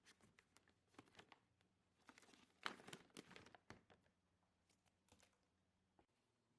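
Packaging being handled and opened: faint crinkling and tearing with scattered small clicks, busiest in the middle.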